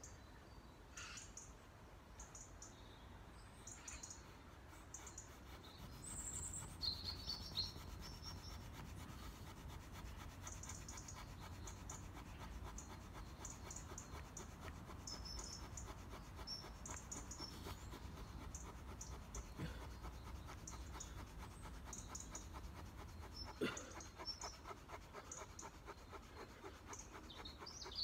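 Fire plough: a wooden stick scraped rapidly back and forth along a groove in a wooden hearth board, a steady rhythmic rasping that picks up about six seconds in. By the end the groove is smoking, so the friction heat is building toward an ember. Birds chirp throughout.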